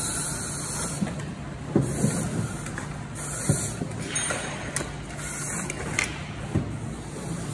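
A firefighter breathing on an SCBA, the mask regulator hissing with each breath every second or two, with knocks and bumps of gear against the wooden crawl prop and a steady low hum underneath.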